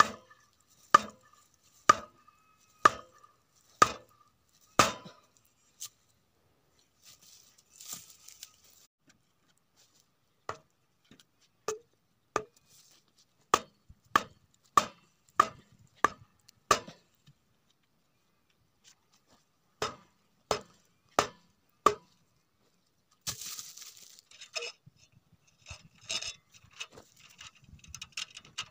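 Wooden stakes being pounded into dry ground with a heavy wooden club: sharp knocks in three runs, about one a second at first, then faster, with pauses between. Near the end come looser rustling and scraping sounds.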